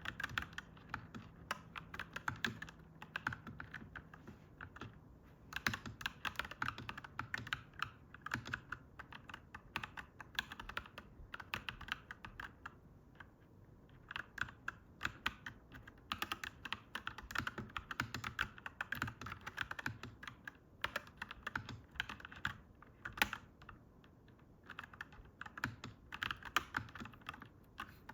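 Mechanical keyboard typed on at a steady pace: fast runs of clacky keystrokes with short pauses between bursts. A faint low hum sits under the typing and fades out over the first several seconds.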